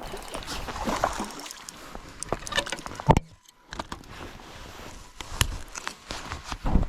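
A string of knocks, clatter and water sloshing on a bass boat as a small bass is brought aboard and handled, with a loud thump about three seconds in.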